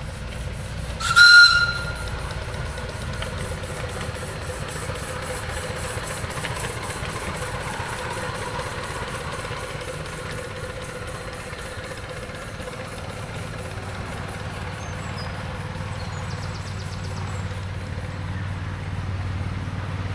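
Miniature steam locomotive's whistle sounding one short, loud, shrill blast about a second in, followed by the steady hiss and running noise of the steam engine.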